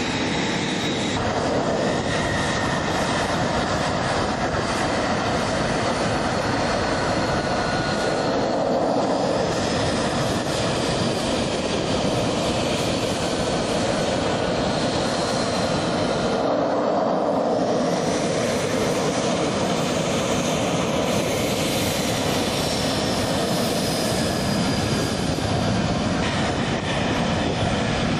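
F-35B Lightning II's F135 turbofan jet engine running on the ground as the fighter taxis: a steady, loud rush of jet noise with high whining tones that shift in pitch.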